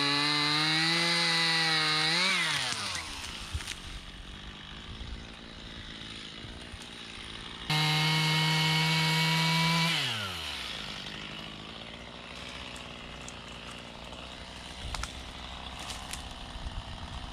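Chainsaw cutting at the base of a tree trunk at full throttle, its pitch wavering under load, then dropping back to idle about two seconds in. It comes back abruptly at full revs about eight seconds in, cuts for about two seconds, and falls back to a steady idle, with a few light knocks near the end.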